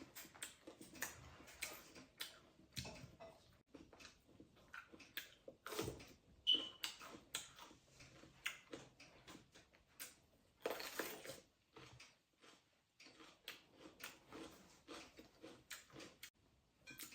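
Eating soup noodles close to the microphone: quiet, irregular chewing and mouth clicks with occasional slurps.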